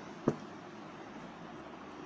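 A single short knock of a mixing stick against the bowl about a quarter second in, during the stirring of slime, over a steady background hiss.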